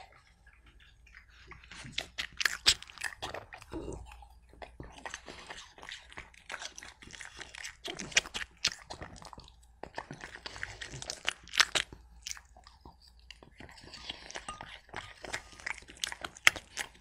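French Bulldog chewing apple: rapid clusters of sharp crunches, broken by short pauses.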